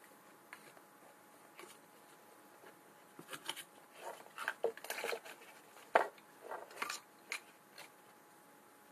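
Cardboard phone box being handled: light taps and scraping of cardboard, then a busier run of scrapes and knocks as the phone is worked out of its tray, with the sharpest knock about six seconds in.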